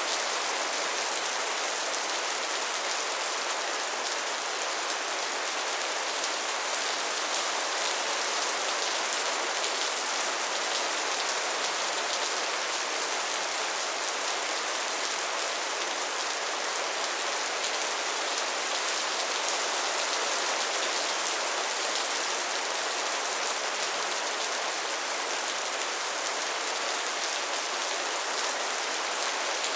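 Steady soft rain falling on a surface, an even hiss of many small drops with no thunder.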